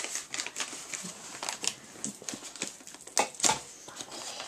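Packaging being handled: scattered small clicks, taps and rustling, with two louder knocks a little after three seconds in.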